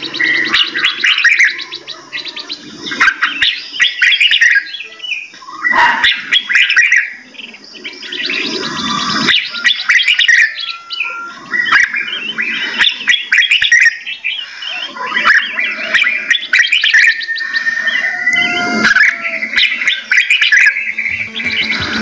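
Several songbirds chirping and calling over one another in quick, busy phrases of short sharp notes and brief whistles.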